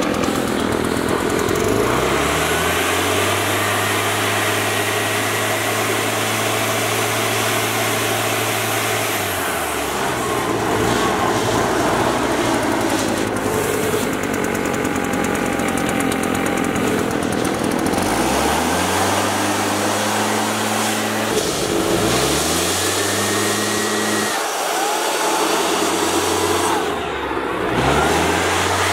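Gasoline leaf blower engine running and blasting air into open desktop computer cases. It is throttled up about two seconds in and held high, drops back to idle around ten seconds in, then is revved again in three shorter bursts in the second half, with air rushing throughout.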